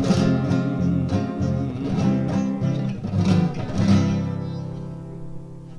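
Nylon-string classical guitar, fingerpicked, playing the closing bars of a guarânia; it ends on a final chord about four seconds in that rings and fades away.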